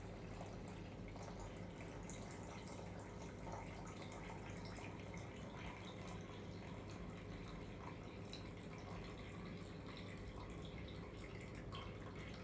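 Cooking liquid drained from a tilted stainless steel pot in a thin stream, trickling and dripping into a plastic measuring jug. It is faint and steady, over a low steady hum.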